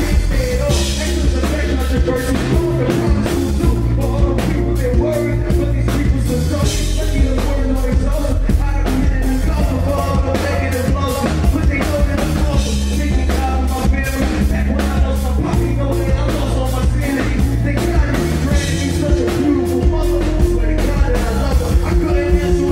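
Live band playing: electric guitar, bass guitar and drum kit, with a regular drum beat over long held bass notes.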